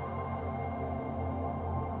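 Soft ambient background music with a low drone and long held tones.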